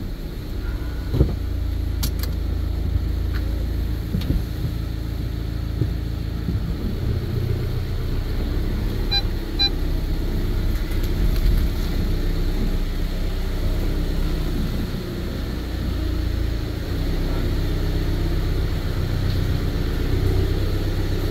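VW Caddy van driving, heard from inside the cab: a steady low engine and road rumble that swells and eases a little.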